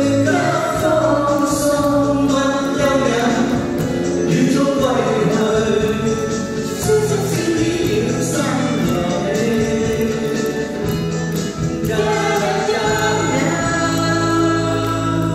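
Two men and a woman singing a Chinese-language pop song together into handheld microphones over recorded accompaniment, closing on long held notes near the end.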